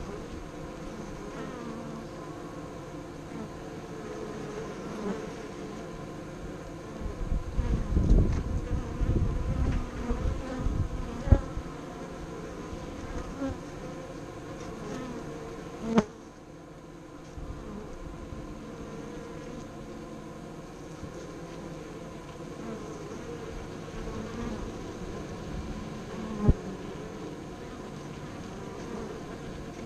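Honeybees buzzing at the hive entrance: a steady hum of many bees, with single bees flying close past. A louder, rough low rumble swells between about 7 and 11 seconds in, and there are sharp knocks near 11, 16 and 26 seconds.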